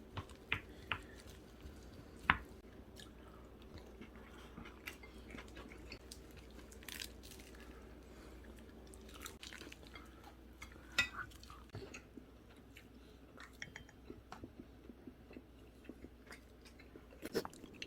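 People eating at a table: chewing, with scattered small clicks of spoons and chopsticks against bowls. A faint steady low hum runs underneath.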